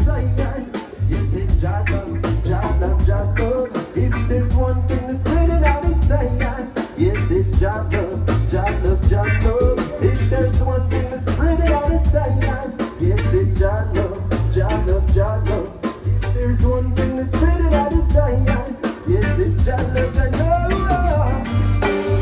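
Live band playing a song: drum kit, bass, guitar and keyboard, with a lead voice singing over it.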